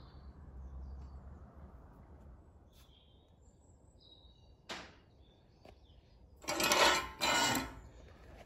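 Two short bursts of metallic clatter close together about seven seconds in, after a single faint click, typical of steel being handled in a metal workshop.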